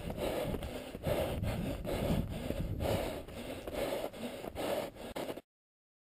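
A trail runner's hard, rasping breathing on a steep uphill climb, a loud breath about once a second, with rubbing noise on the body-worn camera. The sound cuts off abruptly to silence near the end.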